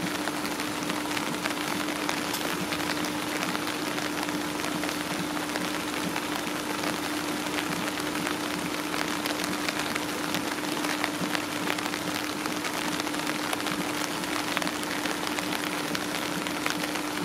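Rain pattering steadily, many small drop hits, with a steady hum underneath.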